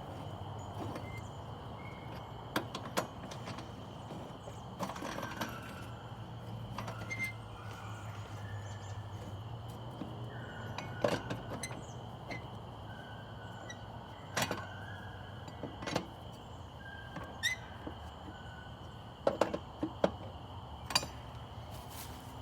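Scattered metallic clicks and knocks from hand work on the mower's wheel mounting, tightening the wheel bolts, with a few short squeaks. A steady high drone and a low hum run underneath.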